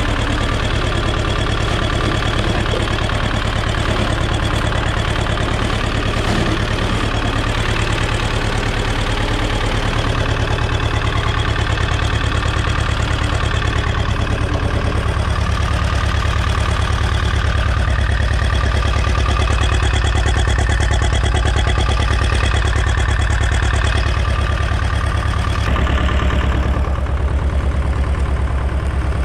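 Władimirec T-25 tractor's air-cooled two-cylinder diesel idling steadily.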